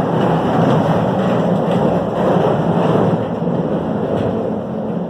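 Hand pallet jack with a loaded pallet rolling across a truck trailer's floor: a steady, loud rumble of its wheels.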